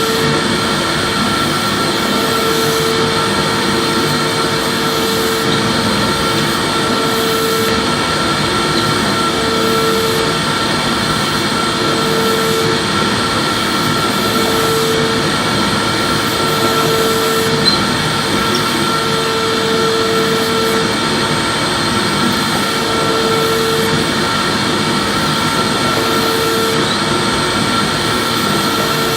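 Electric vacuum cleaner running steadily with a high whine. A lower hum comes and goes every couple of seconds as the cleaner is pushed back and forth in vacuuming strokes.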